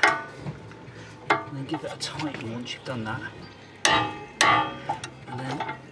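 Several sharp metallic clanks, each ringing briefly, from a steel spanner being worked against a seized, rusted 19 mm rear strut bolt. The loudest come just after the start and twice about four seconds in.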